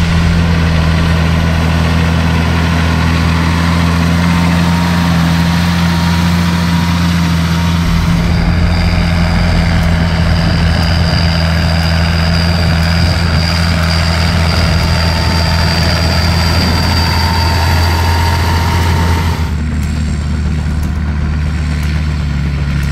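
Massey Ferguson 8470 Dyna-VT tractor's 8.4-litre SISU six-cylinder diesel running steadily under load while pulling a wide tine cultivator through stubble, a loud, even low drone. The sound changes abruptly twice, about 8 and 19.5 seconds in.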